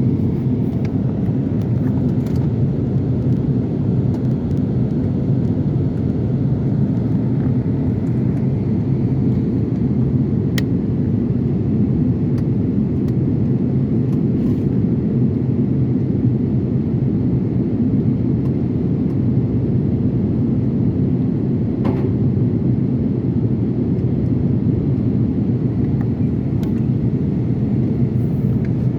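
Steady low rumble of an airliner cabin in flight on the landing approach: engine and airflow noise heard from inside the cabin, even throughout, with a few faint small clicks.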